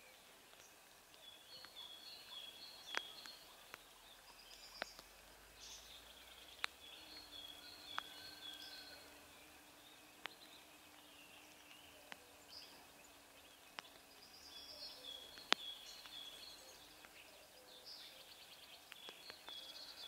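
Faint small songbirds chirping in short series of quick high notes, with several sharp clicks scattered through. A faint low steady hum runs through the middle.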